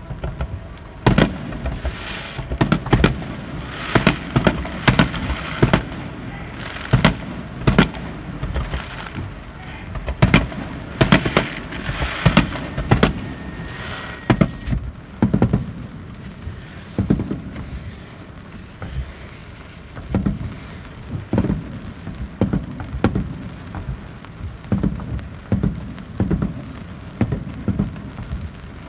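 Aerial firework shells bursting in an irregular string of loud bangs, many close together in the first half and more spaced out after about fifteen seconds.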